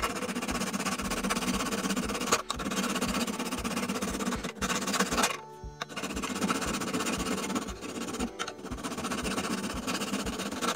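Hand file rasping over the steel of old rusty pliers clamped in a bench vise, in two long runs of quick strokes with a short pause in the middle. Background music with a steady beat runs underneath.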